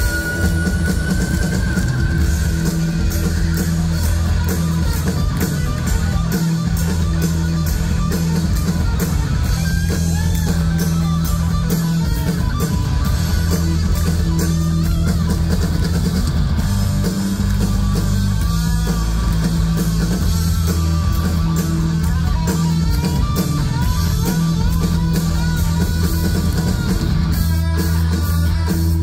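A rock band playing live and loud: distorted electric guitar over bass guitar and a drum kit, with no singing, heard from the festival crowd through the stage PA.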